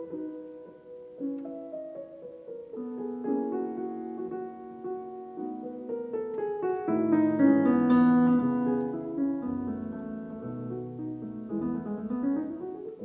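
Background piano music: a gentle melody over chords, swelling in the middle and closing with a rising run of notes.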